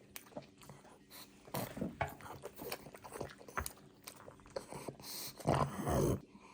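A pug chewing cucumber: wet crunches and bites in quick, uneven succession, with a louder stretch of chewing and mouth noise near the end.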